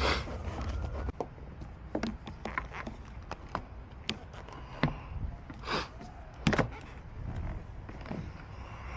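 Scattered sharp clicks and knocks of a locksmith's tools working on a car door to open it without the key, the loudest about six and a half seconds in, with a short hiss just before it.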